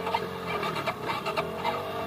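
Trail motorcycle engines revving, their pitch rising and falling in long swells, with a few sharp clicks.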